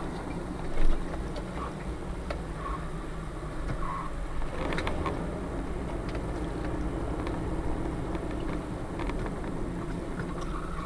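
Steady low rumble of a car driving on a wet highway, heard from inside the cabin, with a brief louder bump about a second in and scattered faint clicks.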